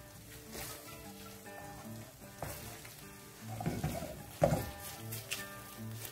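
Ground beef and vegetables with tomato paste sizzling in a nonstick frying pan while a wooden spatula stirs them, scraping the pan several times, loudest about four and a half seconds in. Background music plays throughout.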